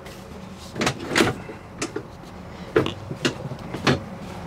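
Front cab seat of a Mercedes Sprinter camper van being unlatched and swivelled around on its swivel base: a string of about half a dozen separate clunks and clicks from the seat mechanism.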